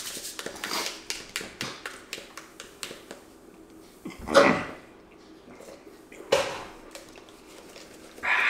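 Frozen Slurpee slush being sucked up through plastic straws: a run of small wet clicks and crackles, with a short louder burst about four seconds in and a couple of single sharp clicks later.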